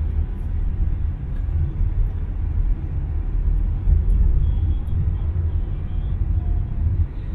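Steady low rumble of a moving road vehicle: engine, tyre and wind noise while driving.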